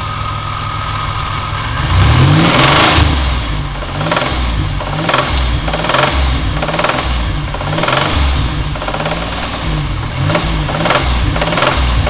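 Supercharged 3.4-litre V6 of a 2000 Pontiac Grand Am GT idling, then revved unloaded in repeated short blips from about two seconds in, with a sharp knocking at each rev. The owner is pretty sure it is rod knock from a failing bearing, which an oil analysis showing high iron, copper, lead and tin backs up.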